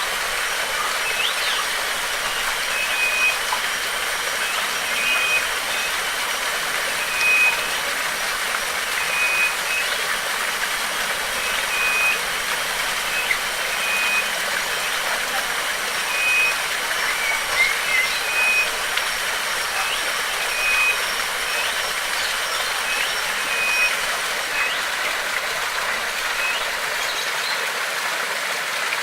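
Steady rush of a stream or small waterfall. Over it a short high note repeats about every two seconds, with scattered brief bird chirps.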